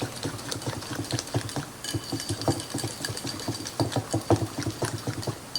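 A utensil stirring homemade ranch dressing in a bowl: rapid, irregular clicking and tapping against the container.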